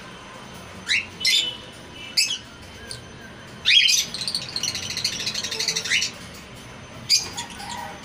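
Cage birds calling: a handful of short, sharp rising squawks, and near the middle about two seconds of fast, high chattering chirps.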